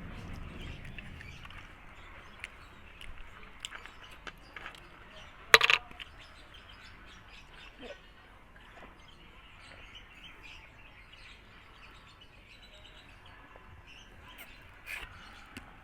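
Faint bird chirps in the background, with scattered small clicks and one sharp, loud click about five and a half seconds in.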